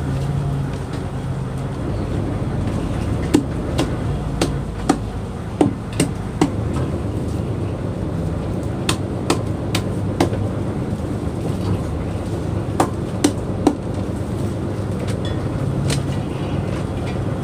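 Steady low drone of a fishing boat's engine, with about a dozen irregular sharp knocks and clicks from crew handling lobster nets on deck, bunched in two spells.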